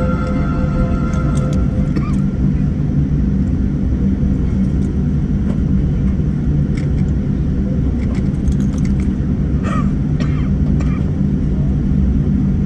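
Boeing 787-9 cabin noise on the ground before takeoff: a steady low rumble and hum of the engines running at low power, with a few faint clicks and knocks in the cabin.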